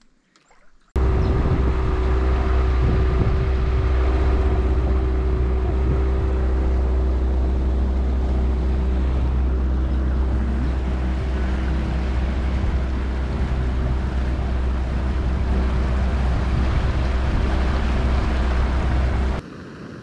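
Mercury outboard motor running steadily at speed under way, with wind rushing over the microphone. It starts abruptly about a second in and cuts off near the end to a much quieter steady hiss.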